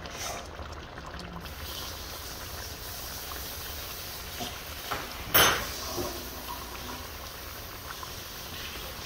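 Curry chicken gravy simmering and bubbling in a wide pot, with one sharper, louder burst about five and a half seconds in.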